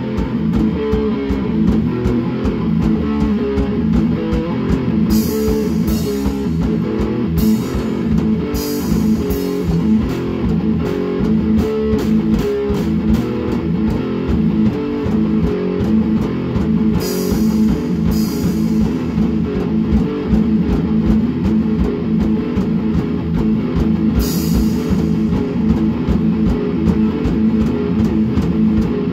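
Rock music: guitar chords over a drum kit keeping a steady beat, with cymbal crashes about six times.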